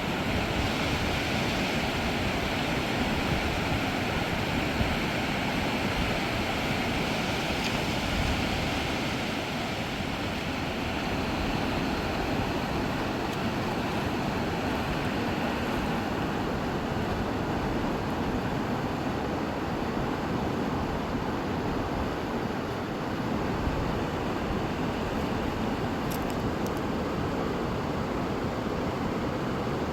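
Steady rushing of flowing river water, an even noise that holds level throughout.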